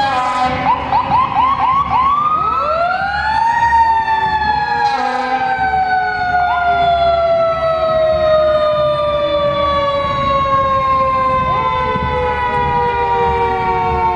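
Fire engine siren giving a few quick short whoops, then winding up to a high pitch and slowly winding down over about ten seconds.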